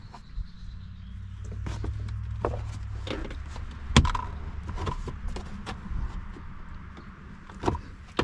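Plastic interior trim of a car being pried loose with a trim tool: scattered clicks and knocks, the loudest about four seconds in, over a low steady rumble.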